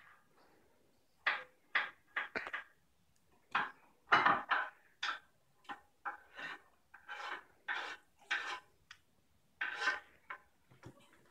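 An irregular string of short knocks and clatters, about two a second, with a louder, longer one a little after four seconds.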